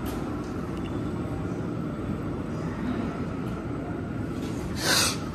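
Metro-station elevator running, a steady low rumble, with a short loud burst of noise and a falling squeak near the end.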